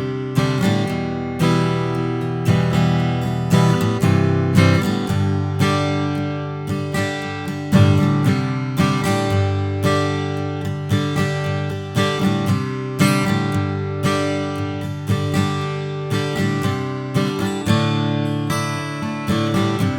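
Martin D12E dreadnought acoustic guitar, sitka spruce top with sapele back and sides, strummed in a steady rhythm of ringing open chords that change every few seconds, with a few harder accented strokes.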